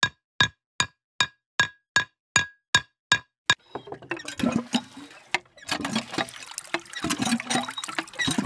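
A run of sharp, evenly spaced clicks, about two and a half a second, then a miniature hand pump's thin stream of water splashing and trickling into a small pond.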